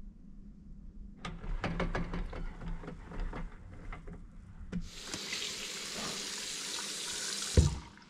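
A run of clicks and knocks from handling and moving about, then a tap running into a washroom sink as a steady hiss for about two and a half seconds, ending with a thump near the end.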